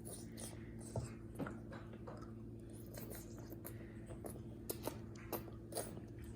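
Someone chewing spaghetti close to the microphone: a scatter of small mouth clicks and smacks over a faint steady hum.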